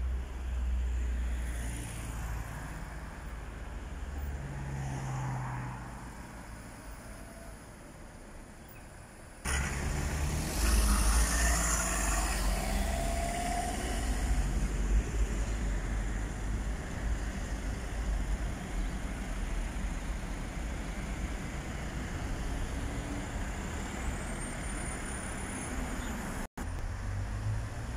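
Road traffic: cars driving past on a town street, a steady low rumble of engines and tyres.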